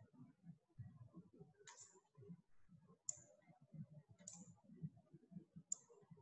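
Faint computer mouse clicks: four sharp clicks about a second and a half apart, made while drawing lines on screen, over a low background rumble.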